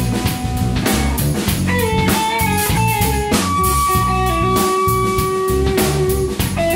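Live rock band jamming: electric guitar plays lead lines over a drum kit, holding one note for about three seconds a little past the middle.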